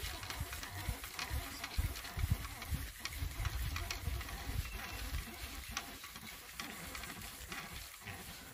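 Wind buffeting the microphone in gusts, over a steady hiss and patter of rain.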